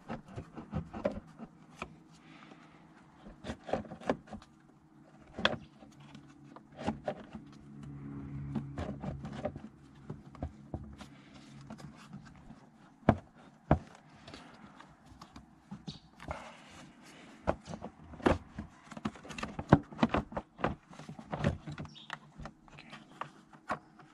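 Hard plastic engine-bay parts being handled: the engine cover and air-intake pieces are lifted, shifted and pressed into place, giving irregular clicks and knocks.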